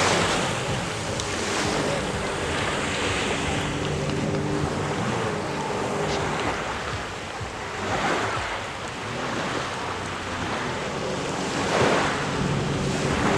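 Jet ski engine running on the water, with rushing spray and wind buffeting the microphone; the water noise surges about eight and twelve seconds in.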